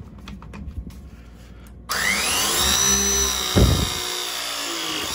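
Milwaukee M18 Force Logic press tool running through a press cycle, crimping a 3/4-inch Viega MegaPress G fitting onto black steel pipe. The motor starts about two seconds in with a whine that rises in pitch and then holds, and it stops right at the end.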